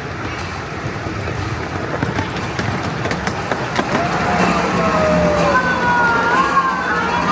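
Rumble and clicking of a 7¼ inch gauge miniature steam train's wheels running on the rails. About four seconds in, a wavering high squeal of several gliding tones joins in and the sound grows louder.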